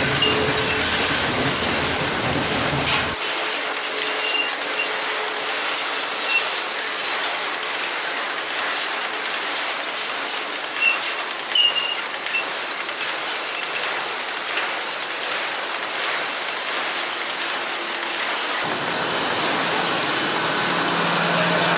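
Empty freight grain hopper cars rolling past close by: a steady rush of steel wheels on rail, with scattered clicks and a few brief high wheel squeals. Near the end a low engine drone comes in as the train's GM G22UC diesel helper locomotives draw near.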